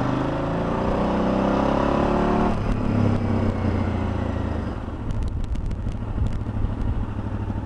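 KTM 990's V-twin engine accelerating, rising in pitch for about two and a half seconds, then dropping sharply and falling away, with a steady rush of wind.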